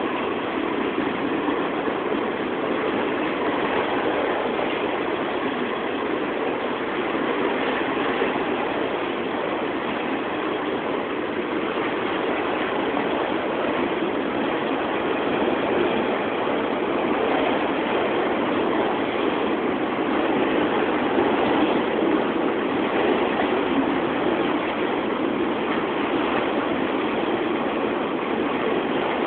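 Freight train's autorack cars rolling past close by: a steady, unbroken noise of steel wheels running on the rails.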